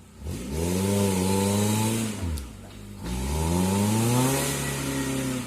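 Suzuki Jimny 4x4's engine revved hard twice. Each time the pitch rises and holds, and the first pull drops away about two seconds in, with a short lull before the second.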